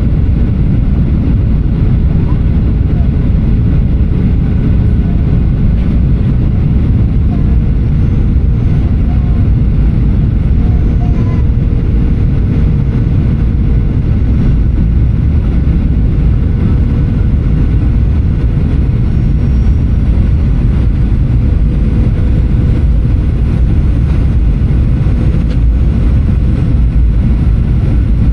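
Steady low rumble of engine and airflow noise inside the cabin of a Boeing 737-800 on its approach, with a faint steady hum above the rumble.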